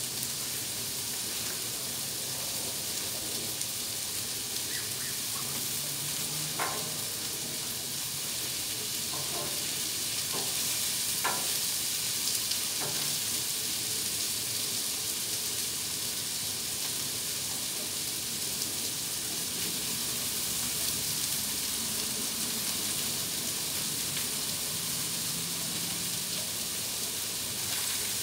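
Chopped meat sizzling steadily on a Blackstone propane flat-top griddle, with a few faint ticks.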